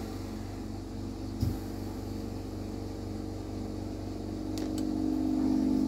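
Steady low electrical hum of lampworking equipment with a bench torch burning. There is a soft knock about a second and a half in and a couple of faint clicks near the end.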